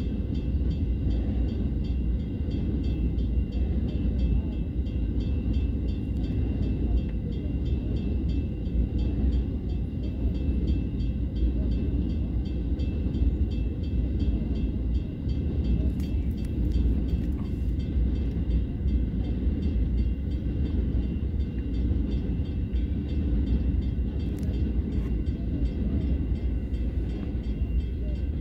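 Freight train of CBH grain hopper wagons rolling past over a level crossing: a steady, continuous low rumble of wagon wheels on the rails.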